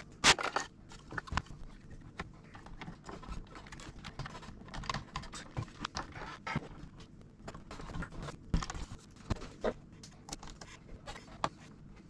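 Scattered clicks, taps and light scrapes of metal and plastic parts being handled as a Mac mini's logic board is slid back into its aluminium case, with a sharper knock just after the start and another about eight and a half seconds in.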